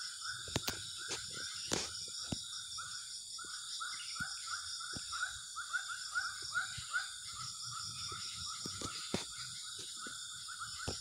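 Outdoor ambience at a waterside: an animal's short chirping calls repeat about two or three times a second over a steady high buzz. A few sharp clicks stand out now and then.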